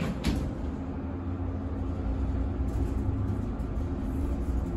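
Armor traction elevator car riding down, heard from inside the cab: a steady low rumble with a steady hum, and one sharp click a fraction of a second in.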